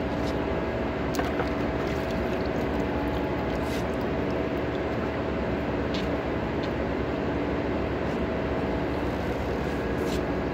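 Steady machinery hum with a constant pitched tone, and a few faint clicks.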